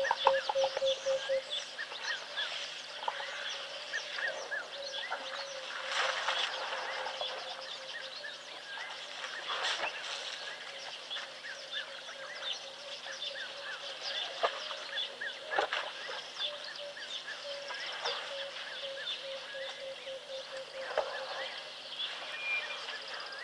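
Wild birds chirping and calling in a busy chorus, with one bird giving runs of low hooting notes, the first run speeding up just after the start. A few brief rustling noises are heard among the calls.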